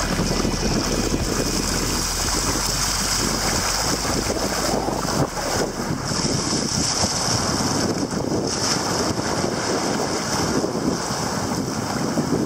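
Water rushing and splashing along the bow of a sea kayak as it runs through small breaking surf, with wind rumbling on the microphone that eases after the first few seconds.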